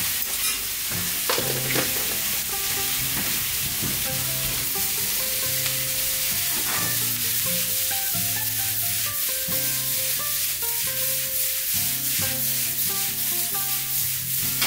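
A stir-fry of pork, vegetables and kimchi sizzling in a hot frying pan on a gas burner, with chopsticks scraping and tossing the food against the pan. Soft background music with held notes plays under it.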